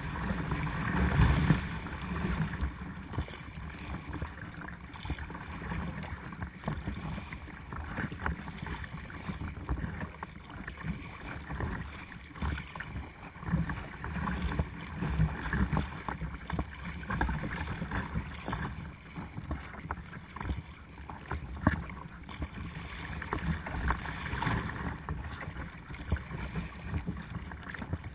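Choppy sea water splashing and sloshing against the bow of a Perception Essence 17 sea kayak as it is paddled through waves, with wind buffeting the microphone. The splashing is heaviest in the first couple of seconds, then goes on in uneven surges.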